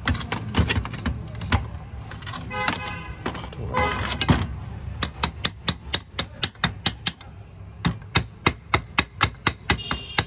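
Metal-on-metal tapping on a Volkswagen steering rack as a greased part is knocked down into the rack housing: a few scattered knocks, then from about halfway a fast run of sharp taps, around four or five a second.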